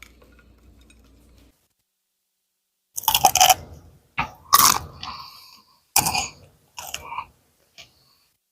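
Crispy chocolate-coated bacon being bitten and chewed: loud crunches in about five sharp bursts, starting about three seconds in.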